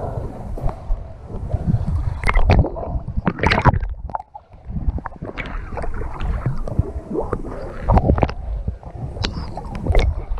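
Water splashing and gurgling around a snorkeler's action camera as the swimmer strokes along, the camera dipping between underwater and the surface; irregular sharp splashes over a churning wash, with a brief lull about four seconds in.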